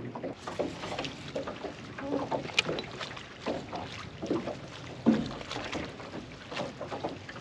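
Scattered light knocks and ticks of handling aboard a fishing boat, with one sharper click a little over two seconds in, over a steady hiss of wind on the microphone.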